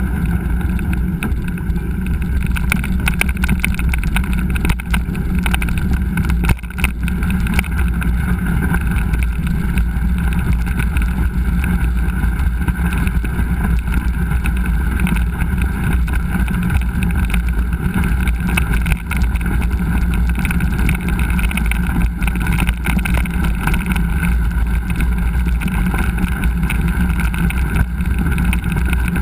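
Steady wind rush over a GoPro's microphone while riding a mountain bike on a trail, with frequent small rattles and knocks from the bike over rough ground.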